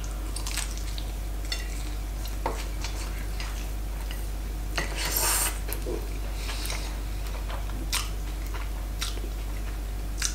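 A person chewing a bite of salted herring on rye bread with caper dressing: scattered soft, wet mouth clicks and smacks, with a longer wet sound about five seconds in as the sandwich is brought back to the mouth.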